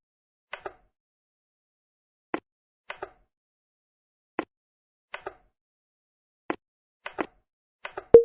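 Plastic wheels of a brick-built model train clicking over the track joints: single clicks and quick double clicks every second or so, with one louder click near the end.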